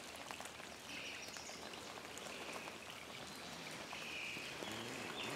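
Faint patter of light rain and drips on a wet campsite, with two faint high calls, about a second in and again near the end.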